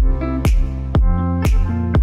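Background electronic music with a steady beat about twice a second, over sustained chords and bass.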